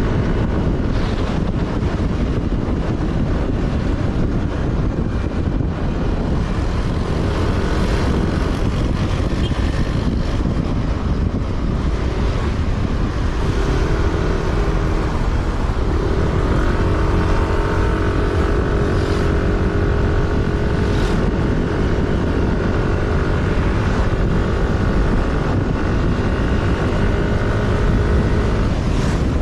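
Road vehicle engine running while driving, under a heavy steady rumble of road and wind noise. The engine note climbs about halfway through, then holds steady.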